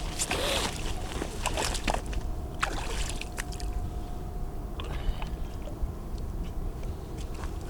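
Water sloshing and splashing at the shoreline, over a steady low rumble, with a few small clicks in the first couple of seconds.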